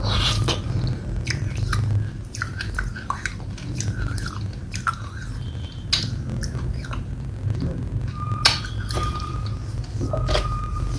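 Close-up mouth sounds of a person eating soft, wet red clay paste: sticky chewing and lip smacks, with short clicks throughout. Near the end come a few brief clinks and scrapes of a metal spoon against the plastic tub.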